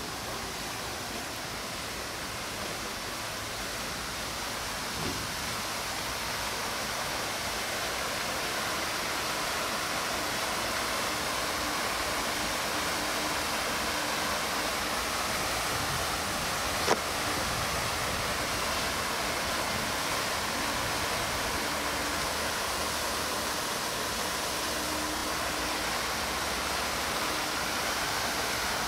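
A steady rushing noise, with a single sharp click about 17 seconds in.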